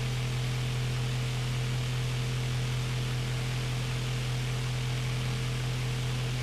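Electric pedestal fan running steadily: a constant low motor hum under an even rush of air.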